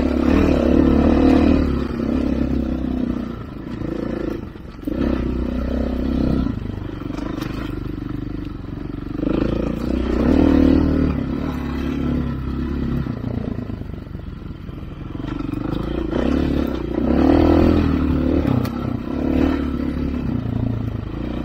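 Dirt bike engine running as it is ridden along a rough trail, the revs rising and easing off every second or two, with a few short knocks along the way.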